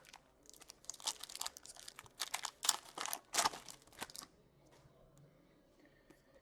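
A trading card pack's wrapper being torn open and crinkled by hand: a quick run of crisp crackles and rips lasting about three and a half seconds, then only a few faint handling clicks.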